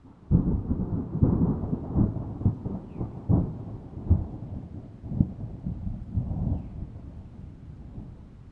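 A thunderclap breaking in suddenly with a string of sharp cracks, then rolling into a low rumble that slowly fades.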